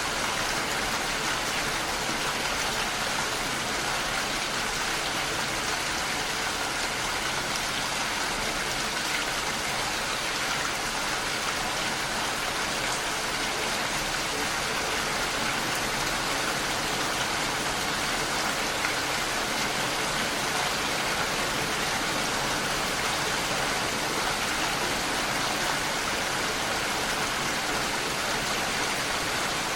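Heavy rain falling steadily on a window, an even hiss of countless drops.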